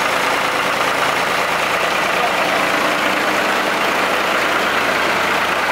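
Farm tractor engine idling steadily, an even, unchanging running sound.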